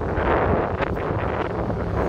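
Wind buffeting the microphone outdoors, a loud, rough rumble.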